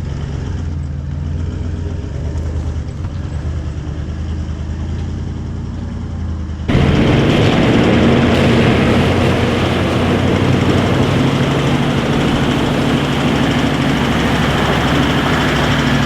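4WD engine working steadily in first gear low range, climbing a steep track with a trailer in tow. About two-thirds in, the sound cuts abruptly to a louder, brighter engine noise that holds steady.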